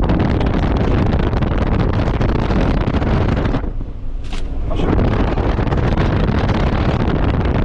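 Loud wind buffeting the microphone over the rumble of a Suzuki Grand Vitara driving off-road. The noise drops away for about a second, around four seconds in.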